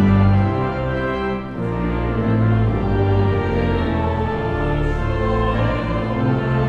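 Church pipe organ playing a hymn in full, sustained chords over a deep pedal bass, with the choir and congregation singing.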